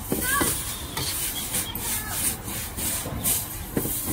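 Stir-frying noodles in a steel wok: a metal ladle and spatula scrape and toss the noodles against the wok, over the steady rush of a gas wok burner.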